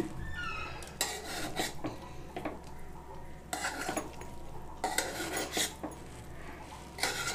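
Slotted spatula stirring and fluffing cooked rice in a pressure cooker pot, with short scrapes and knocks against the metal sides several times.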